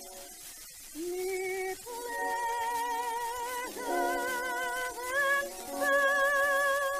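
A woman singing high, held notes with a wide vibrato over musical accompaniment. The voice steps up in pitch about five seconds in and holds its highest note until near the end.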